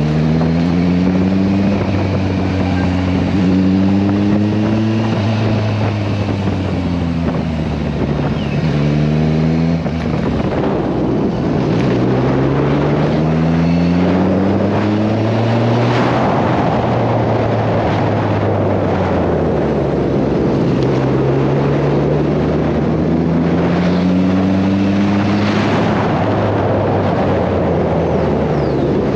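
Kawasaki Versys 1000 LT's inline-four engine running under way on the road. The engine note rises and falls in pitch several times as the bike speeds up and slows. Wind rushes over the microphone.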